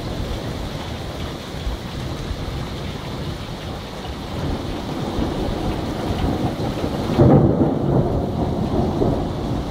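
Thunder rumbling without a break over steady rain, swelling louder about seven seconds in.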